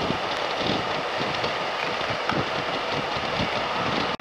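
Steady rush of wind and road noise from a motorcycle cruising at highway speed.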